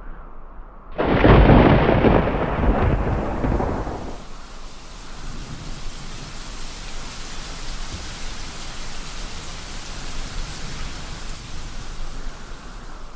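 A thunderclap breaks out suddenly about a second in and rumbles for about three seconds before fading, then steady rain hisses.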